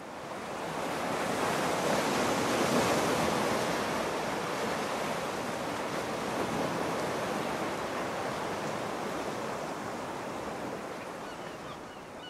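Ocean surf: waves washing and breaking in a steady rush. It swells in over the first couple of seconds and slowly eases off toward the end.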